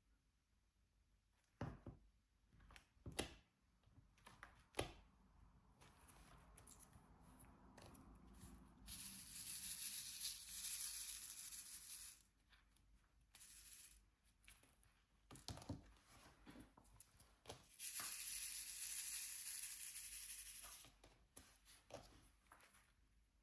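Diamond painting handling sounds: light clicks and taps of the tools, and twice a hissing, rustling stretch of about three seconds.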